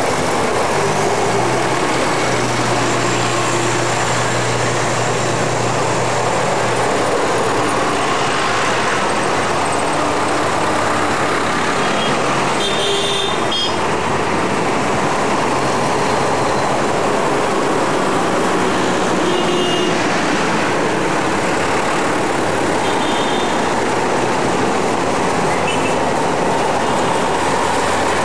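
Diesel farm tractors driving past one after another in a slow procession, their engines running steadily and overlapping. A low engine hum stands out in the first few seconds.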